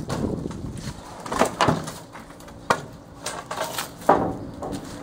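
Broken wooden boards and planks from a demolition clattering and knocking as they are picked up and handled on a debris pile: several separate knocks, the loudest a little past four seconds in.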